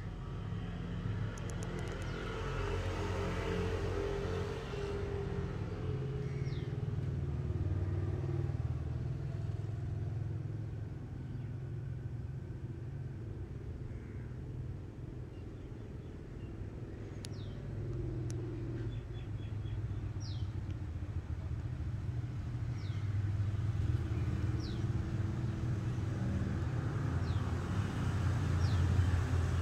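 A steady low rumble outdoors. A few short, faint high chirps come in the second half.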